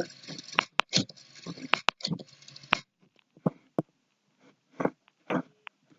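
Irregular clicks and light knocks from handling an old rotary telephone, closer together in the first three seconds and sparser after.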